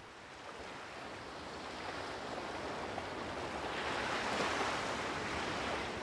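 Sea surf washing on the shore, a steady rush that swells gradually to its loudest about four seconds in.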